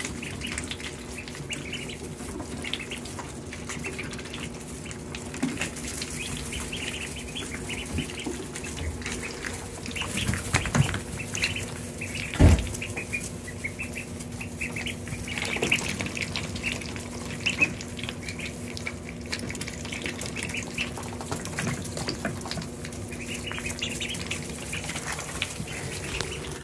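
A brood of ducklings peeping, with many short high chirps throughout. A single sharp thump comes about halfway through, and a faint steady hum runs underneath.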